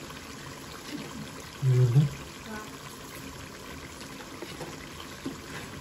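Chicken curry simmering in a steel kadai on the stove, a steady low hiss of bubbling gravy. A brief word is spoken about two seconds in.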